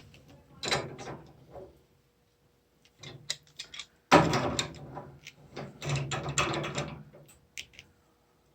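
A wrench clicking and knocking against a washing-machine shut-off valve as it is turned onto the threaded pipe, a few turns to tighten it. The loudest is a sudden knock about four seconds in, followed by a cluster of clicks.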